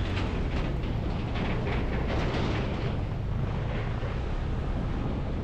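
Motorcycle riding sound: a steady low rumble with wind noise buffeting the microphone.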